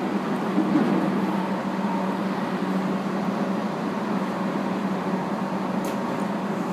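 Steady running noise heard inside a JR 811 series electric train's passenger car as it travels along the line: an even rumble of motors and wheels on rail with a faint hum.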